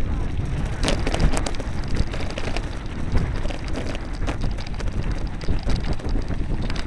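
Mountain bike ridden over a rough dirt and gravel track: a steady crunching tyre noise with a dense clatter of small knocks and rattles from the jolting bike, and wind rumbling on the microphone.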